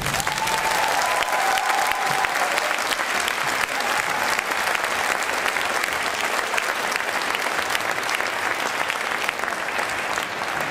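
Audience applauding steadily as the music of a performance ends.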